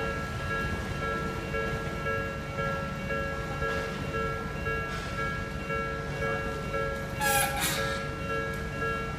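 Japanese railroad crossing warning bell ringing in a steady, evenly repeating beat, over the low rumble of a train on the line. About seven seconds in there is a short, loud, hissing burst from the train.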